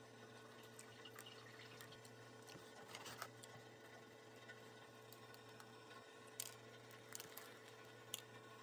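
Near silence with a steady faint hum and a few faint light clicks and taps, of metal cutlery on a cardboard takeout box.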